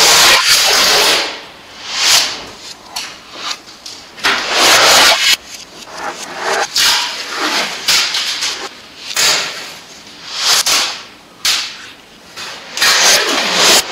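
Adhesive tape being pulled off the roll and torn, strip after strip: a loud, rasping rip about every second or so.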